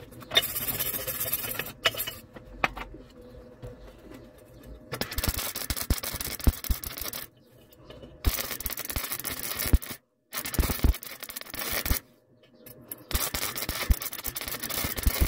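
MIG welding arc crackling and hissing on a steel exhaust pipe, in about five runs of one to two seconds each with short pauses between, as the Mondeo V6 exhaust is welded up.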